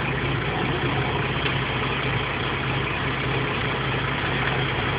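Tractor-trailer truck's diesel engine idling steadily.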